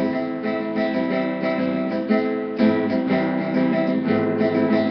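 Acoustic guitar strummed in a steady rhythm, chords ringing through an instrumental break with no singing.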